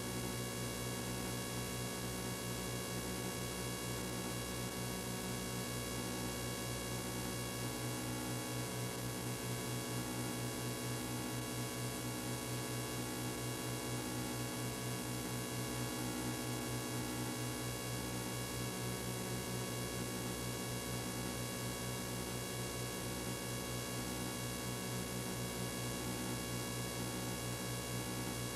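Steady electrical hum with many even overtones over a constant hiss, unchanging throughout: the noise floor of a blank stretch of audio track.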